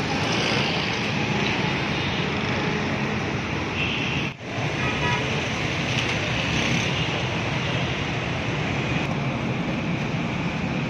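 Busy street traffic noise: a steady wash of passing cars and motorcycles, dropping out briefly about four seconds in.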